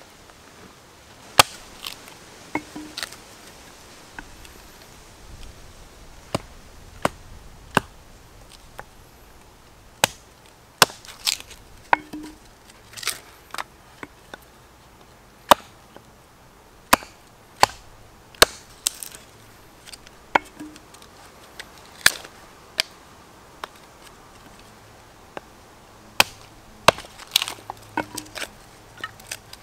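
Hatchet chopping and splitting small pieces of wood into kindling on a log: an irregular series of sharp chops, some in quick pairs, with short pauses between.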